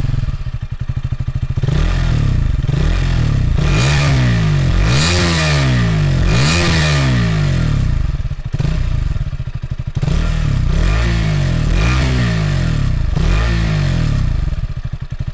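KTM RC200 BS6's 199.5 cc single-cylinder four-valve engine running through its reworked BS6 silencer and catalytic converter, heard close at the underbelly exhaust outlet. It idles and is revved with quick throttle blips, one run of several blips a few seconds in and another after a short lull past the middle.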